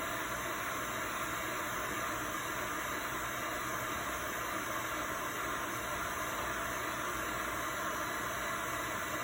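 Heat gun running steadily, blowing hot air with an even hiss over a circuit board to heat its solder until it melts.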